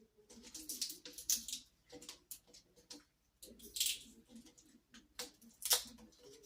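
Handling sounds of the shampoo bowl's plastic parts and tube being fitted: irregular rustling, scraping and light clicks, several sharper bursts about a second, four seconds and near six seconds in.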